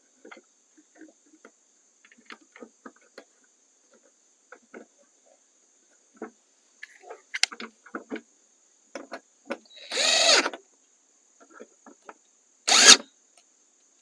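Cordless power driver whirring in two short spurts as screws are driven back in, among scattered small clicks and taps of screws and plastic parts being handled.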